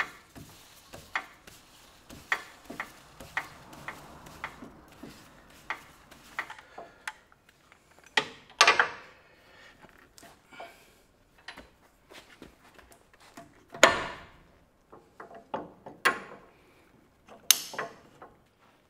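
Metal clicks and knocks from the winch hook and its coupler being handled: light clicks at about two a second, then louder clanks about eight seconds in, near fourteen seconds and near the end.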